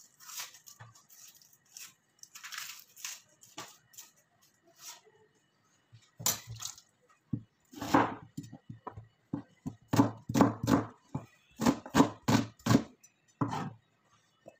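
Kitchen knife cutting a red onion on a cutting board. Light crackling of papery onion skin comes first, then from about six seconds in a run of sharp knocks of the blade against the board, several a second, which stops about a second before the end.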